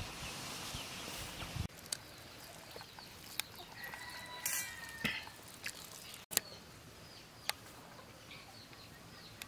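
Faint rural courtyard ambience: hens clucking and small birds chirping now and then, with a few sharp clicks.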